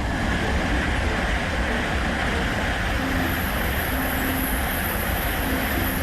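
Steady running noise of a train.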